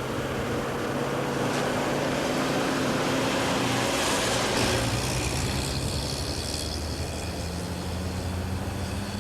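Car engine running steadily, its low hum shifting in pitch about halfway through and again near the end.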